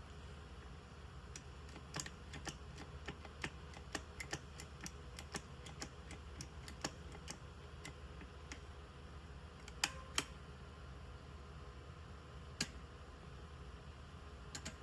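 Master Lock 5423D combination lock box being worked by hand: a steady run of small sharp clicks, two or three a second, from its buttons and latch. A louder pair of clicks comes about ten seconds in, and another loud click follows a couple of seconds later.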